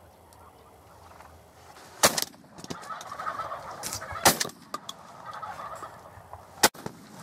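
Wild turkey tom gobbling, with three sharp knocks of the camera being handled against the blind, about two seconds in, four seconds in and near the end.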